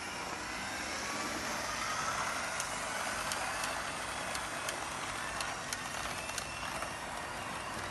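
Lima model of a class 403 multiple unit running on the track, its motor giving the typical Lima whine that rises in pitch over the first few seconds. From about two and a half seconds in there are irregular sharp clicks as the wheels run over the track.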